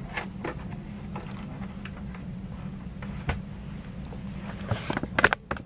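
Handling noise from a wooden tabletop box easel being moved and adjusted: scattered light clicks and knocks, then a quick run of sharper knocks near the end, over a steady low hum.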